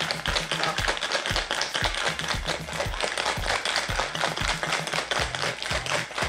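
Stainless steel cocktail shaker being shaken hard, its contents rattling in a rapid, continuous run of hits, over background music with a bass line.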